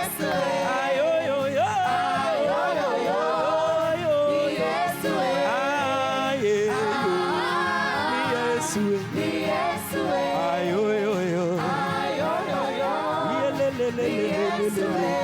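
A gospel vocal group sings a worship song in harmony, several voices together with gliding, ornamented runs.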